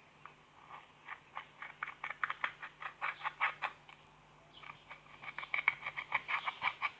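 Slime being squeezed and poked by hand, making rapid wet clicking and popping crackles in two runs of a few seconds each, with a short pause between them.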